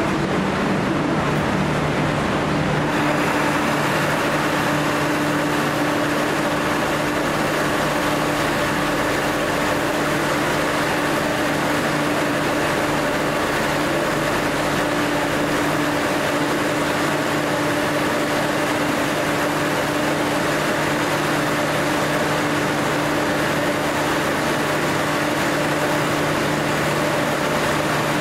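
Diesel train engine idling steadily, a constant droning hum. A second, higher hum joins about three seconds in.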